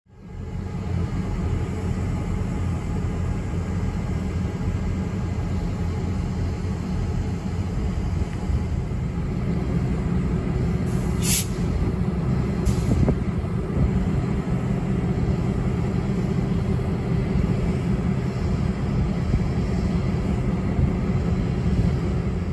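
Diesel-electric freight locomotives idling with a steady low rumble. About halfway through come two short, sharp hisses of air from the locomotives' air system.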